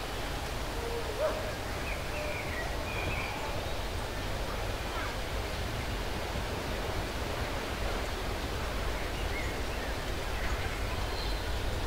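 Steady hiss and rush of a LOWA 50PS narrow-gauge steam locomotive rolling slowly into a station, with a few faint high chirps in the first few seconds.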